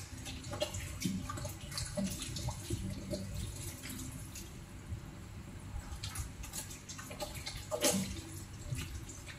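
Kitchen tap running into a stainless steel sink, splashing over hands working under the stream, with irregular splashes throughout; the loudest comes about eight seconds in.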